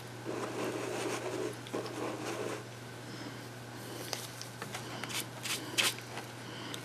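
Rubbing and handling noises as a paintbrush and a papier-mâché coconut are taken up, with a few sharp light clicks in the second half, over a steady low hum.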